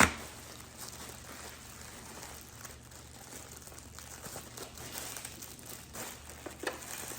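Plastic packaging crinkling and rustling as it is handled, with one sharp knock right at the start.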